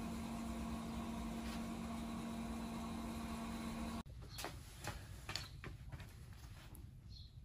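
A steady machine hum with one low held tone that cuts off abruptly about four seconds in, followed by a quieter background with a few light clicks and knocks.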